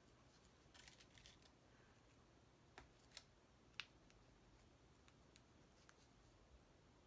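Near silence, with faint fabric rustling about a second in and three light clicks in the middle, from velcro strips being pinned onto fabric tabs by hand.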